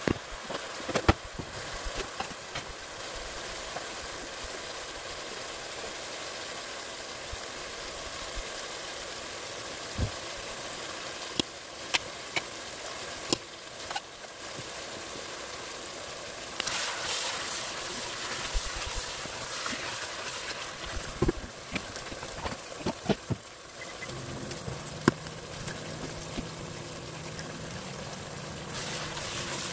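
Chicken frying in a pot with a steady sizzle that grows louder for a few seconds midway. A wooden spoon knocks and scrapes against the pot now and then as the pieces are stirred, and a low steady hum comes in near the end.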